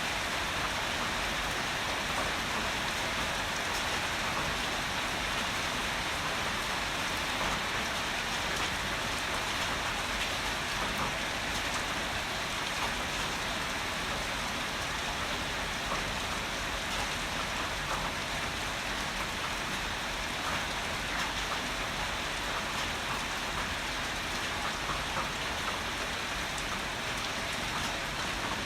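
Heavy rain falling steadily, with the patter of individual drops striking a surface close by.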